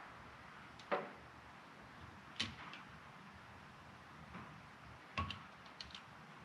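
Three sharp clicks, about a second in, around two and a half seconds and just past five seconds, with a few lighter ticks after the last: channel-lock pliers and small valve parts knocking against a bare cylinder head while the valve seals are pulled.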